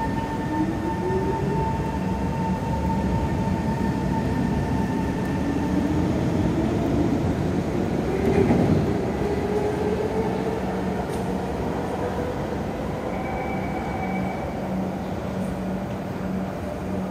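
C151 MRT train running with its motor whine rising steadily in pitch as it gathers speed over a continuous rail rumble. The sound swells briefly about eight seconds in.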